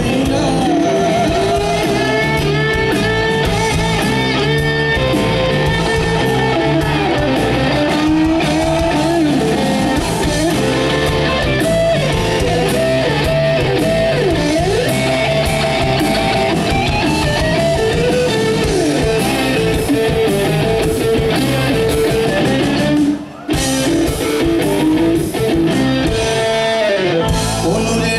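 Folk-rock band playing live and loud: guitars, bass and drums. The sound dips out for a moment about 23 seconds in.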